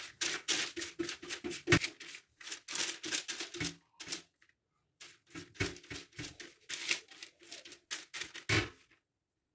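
Silicone pastry brush swept quickly back and forth over baking paper, spreading melted butter: a fast run of scratchy strokes, with a short pause about four seconds in before the strokes resume.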